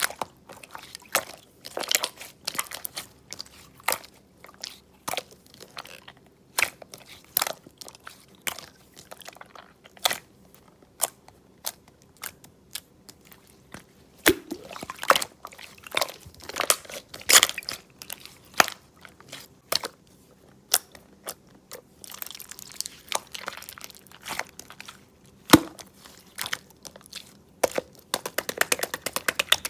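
Mixed slime being pressed, stretched and folded by hand: irregular sticky clicks and pops, with denser runs of crackling in two stretches in the later part.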